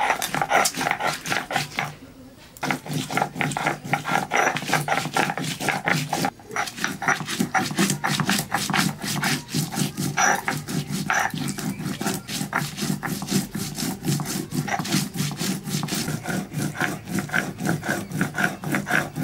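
Stone roller rubbed rapidly back and forth on a stone grinding slab (Bengali shil-nora), crushing seeds and dried red chillies into a wet paste. The strokes come several a second, with a short pause about 2 s in and a brief one about 6 s in.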